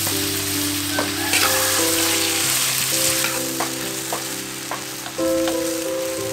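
Sliced beef sizzling as it stir-fries in a hot steel wok, with a metal spatula scraping and clicking against the pan several times as the meat is turned.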